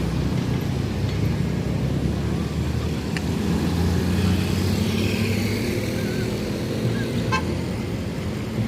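Large tour-bus diesel engine running with a steady low rumble amid road traffic noise.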